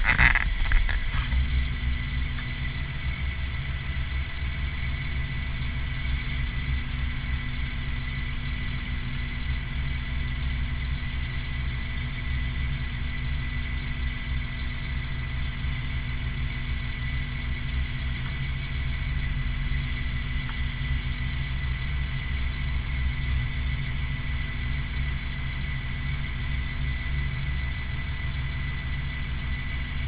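Concrete pump truck's diesel engine running steadily at idle: a low rumble with a thin, steady high whine above it. A short burst of handling noise right at the start.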